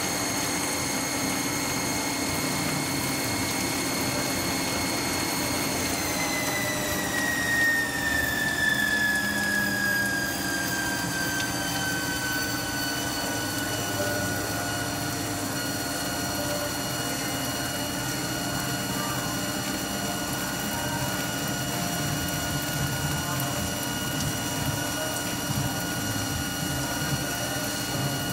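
CNC lathe turning a brass workpiece: a steady high-pitched spindle whine over the noise of the cut. About six seconds in, the whine glides down in pitch over several seconds, then holds steady at the lower pitch.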